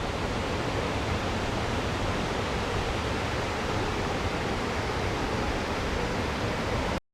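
Waterfall's steady rush of falling water, an even hiss with no change in level. It cuts off abruptly near the end.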